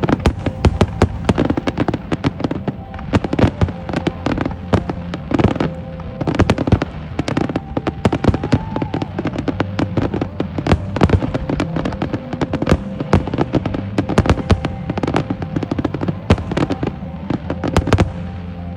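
Fireworks bursting in a dense, rapid barrage, many sharp bangs and crackles a second, which breaks off near the end.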